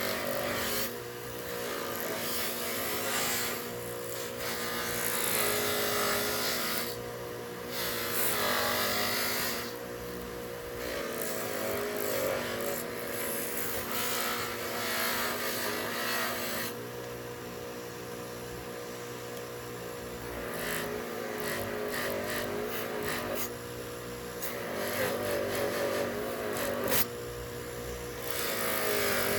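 Small electric power tool running with a steady motor hum, with rubbing noise that swells and fades as work is pressed against it, typical of buffing or polishing on a knife.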